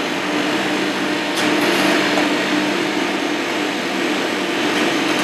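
Steady rushing of a commercial kitchen extraction hood fan, with a low hum under it; a light click about one and a half seconds in.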